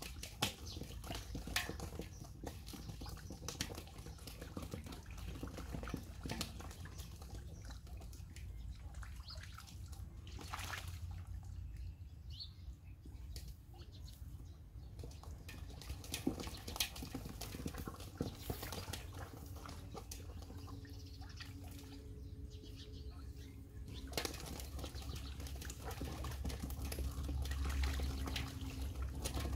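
Scattered splashes and wet slaps in shallow muddy water as fish are grabbed by hand, over a constant low rumble.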